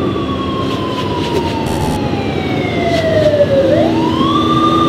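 Siren wailing: one long tone that falls slowly in pitch, then rises quickly back up and holds, over heavy rumbling noise.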